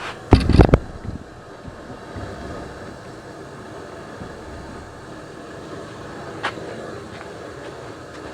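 A brief clatter of several knocks with a heavy low thud, about half a second in, then a steady low background hum with one light click later on.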